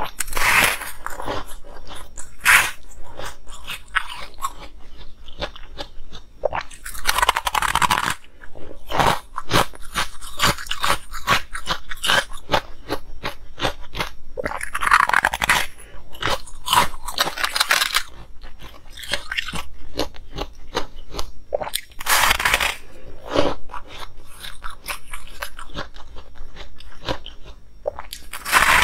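Close-miked biting and crunching of molded colored ice, with chewing in between: runs of sharp cracks and several longer stretches of dense crunching.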